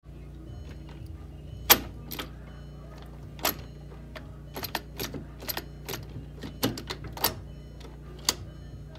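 Clicks and clunks from the Sigma short shift kit linkage on a 2002 Volkswagen Jetta's five-speed gearbox as the shifter is worked during adjustment: irregular sharp metallic clicks, the loudest about two seconds in, over a steady low hum.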